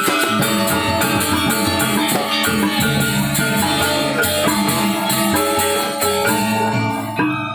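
A Balinese gamelan gong ensemble playing: dense, bright metallophone tones over drums, with a rapid even shimmer of percussion high above. About seven seconds in, the upper layer briefly drops away.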